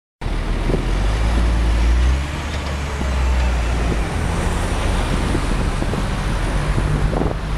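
Diesel engine of a Caterpillar 966H wheel loader, a Cat C11, running under load as the loader drives close past: a steady low drone that eases off slightly about two seconds in.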